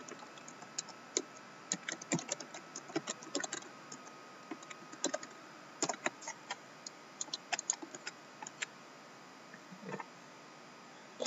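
Typing on a computer keyboard: irregular light keystroke clicks in uneven runs with short pauses between them.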